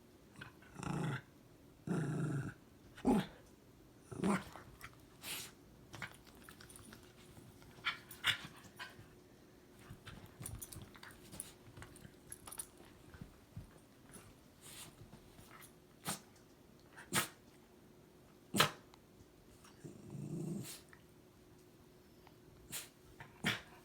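A dog growling playfully in three short low rumbles while busy with a treat, amid scattered sharp clicks and snaps.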